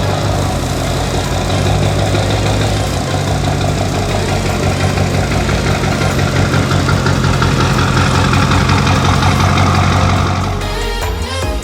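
Diesel pickup truck engine idling steadily. Near the end it gives way to background music.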